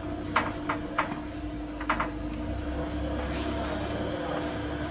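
A few sharp clicks and taps of hardware being handled at the glass-panel fitting, five in the first two seconds, two of them close together, over a steady hum.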